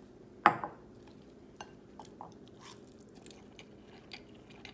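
A man eating instant noodles with chopsticks: one short, loud slurp with a falling pitch about half a second in, then quiet chewing and scattered small clicks.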